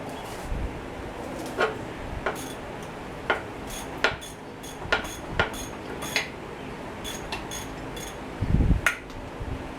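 Hand tools and loose metal parts clinking and knocking in a dozen or more sharp, irregular metallic taps, with a dull thump about eight and a half seconds in.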